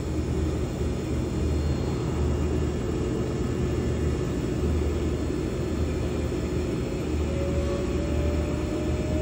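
200 hp North American three-phase electric motor running up to speed on a variable-voltage test supply: a steady hum and rush, with a thin whine that slowly rises in pitch from about six seconds in as the voltage is raised.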